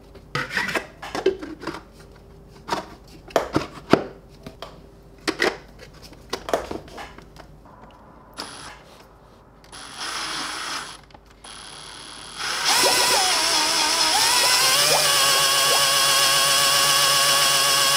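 Plastic clicks and knocks as the parts of a 3D-printed screw pump are handled and fitted together. Then, about twelve and a half seconds in, a Ryobi cordless drill starts spinning the pump's screw and runs steadily, its motor whine shifting in pitch as the trigger is worked.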